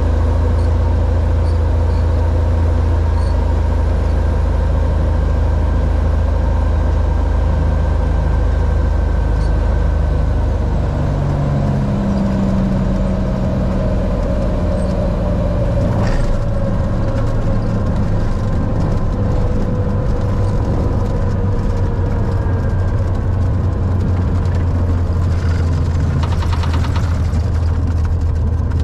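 Cessna 182's six-cylinder piston engine and propeller droning at low power, heard inside the cabin through landing and rollout. The drone drops in pitch and thins about ten seconds in, and a single knock comes about sixteen seconds in.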